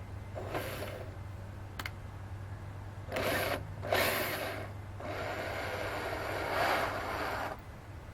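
A handheld power tool running in three short bursts, the last about two and a half seconds long, over a steady low hum.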